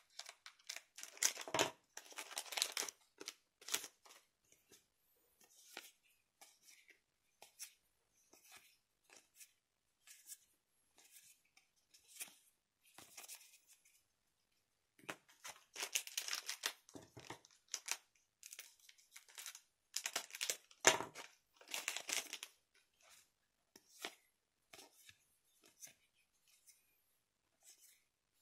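Plastic trading-card booster pack wrapper crinkling and being cut open with scissors, then the cards being handled and slid against each other. It comes in several bursts of rustling, with short clicks and taps between them.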